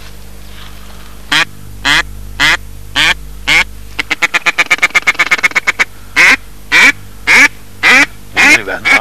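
Duck quacking, loud and close. First come five evenly spaced quacks, then a fast run of short quacks, then five longer, louder quacks.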